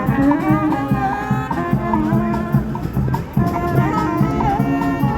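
Street band playing live: a melody over a repeating bass line, with drums.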